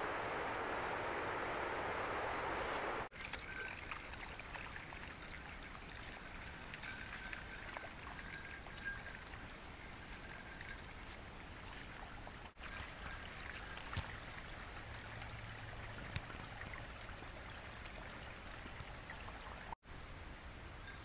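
Rushing water, like a running creek, for about the first three seconds, ending abruptly at a cut. Then a quieter steady outdoor hiss with faint thin high tones and a few soft clicks.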